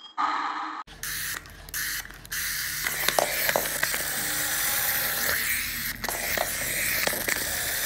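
Small plastic Percy toy engine rolling across a wooden floor: a steady hissing whir with scattered clicks, then a few handling knocks as it is picked up by hand.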